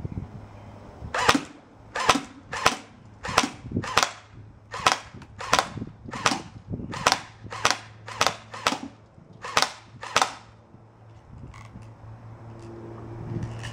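JG/GB AK47 Beta Spetz electric airsoft rifle (AEG) firing single shots, about fourteen of them, each a sharp crack, spaced roughly half a second to a second apart over about nine seconds.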